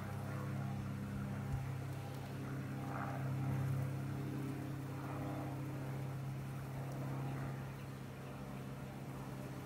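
Steady low hum of a honeybee colony buzzing around its opened hive.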